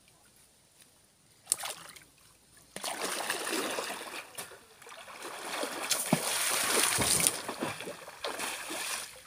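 River water splashing as a person plunges and swims through it chest-deep. A sharp splash comes about one and a half seconds in, then several seconds of continuous churning splashes.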